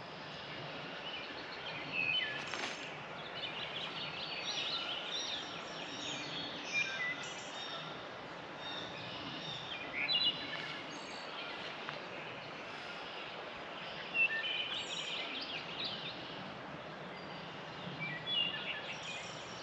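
Wood thrush singing: separate fluty phrases every few seconds, over a steady outdoor hiss.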